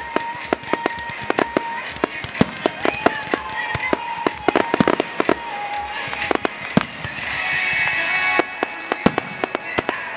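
Fireworks going off in quick succession, a dense run of sharp cracks and pops. Music plays underneath and comes up more strongly in the second half as the reports thin out.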